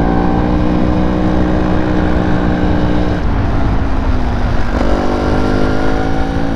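Trail motorcycle engine running at steady revs while riding, easing off about three seconds in and picking up again, rising in pitch, a little before five seconds. A rumble of wind and road noise runs underneath.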